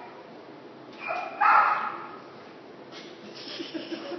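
Boston terrier barking twice in quick succession about a second in.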